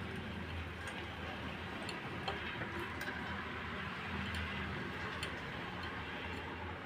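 Faint, scattered small clicks of a crimped wire clip being handled and pushed onto a scooter horn's terminal, over a low steady hum.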